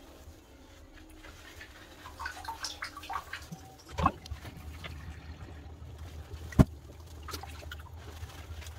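Shallow bathwater splashing and dribbling as hands lather a wet West Highland white terrier puppy in a bathtub, with two sharp knocks in the second half over a low steady hum.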